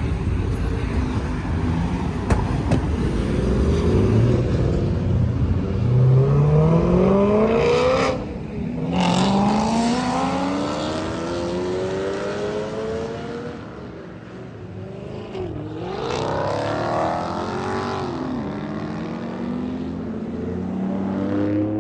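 Several sports cars accelerating hard past one after another, engine pitch rising steeply through the revs, with a sudden break about eight seconds in before the next rising run, and more cars revving up in the second half.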